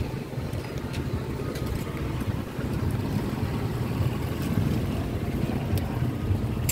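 Steady low rumble of street traffic: motorcycle and tricycle engines running close by.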